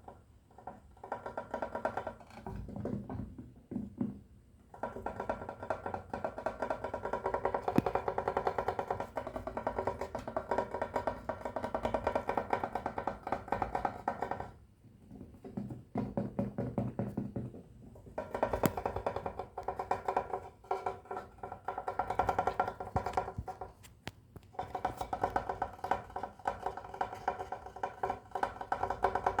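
Fast, continuous tapping on a hollow, resonant object, each tap ringing with a pitch like a wood block, with a few brief pauses.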